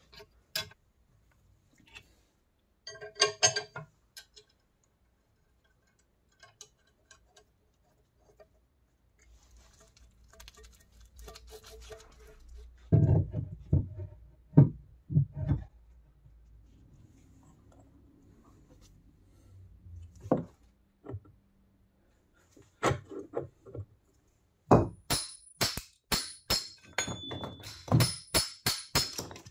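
A wrench clinks on the hex bolts of a cast-iron drill press base. Around the middle come several heavy thunks as the drill press head is worked onto its column. In the last few seconds there is a quick run of sharp strikes as a hatchet splits a small block of wood.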